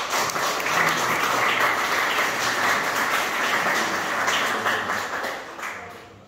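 A small audience applauding, the clapping dying away near the end.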